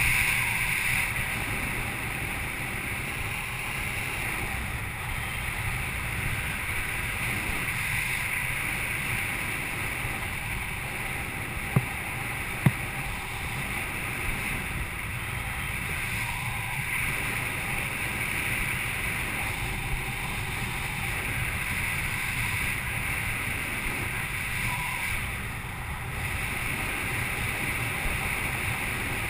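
Steady wind rushing over a GoPro's microphone during parachute canopy flight, with two brief clicks about twelve seconds in.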